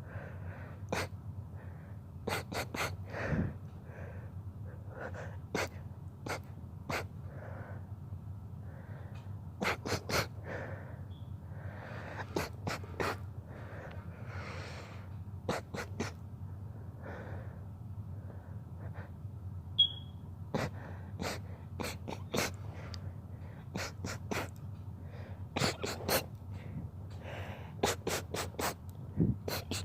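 A rapid sneezing fit: many short, sharp sneezes, often in quick runs of two to four, with breathy inhales between them.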